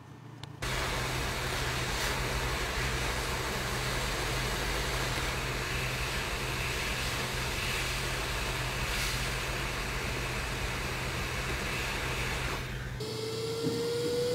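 Hot-air rework station blowing over a phone board's BGA chip: a steady rushing hiss of air with a low hum, starting suddenly just after the start. About 13 seconds in, the hiss gives way to a single rising whine.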